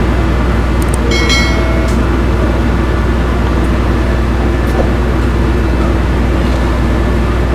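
Steady, loud drone of a ro-ro ferry's diesel machinery running, with a deep hum and fixed engine tones. About a second in comes a brief high-pitched squeal.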